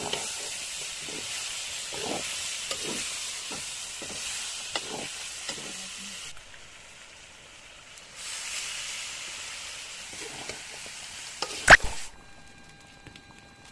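Food sizzling in a hot pan while being stirred, with repeated scraping strokes. The sizzle drops away for about two seconds midway and then returns. A sharp, loud knock comes near the end, just before the sizzling stops.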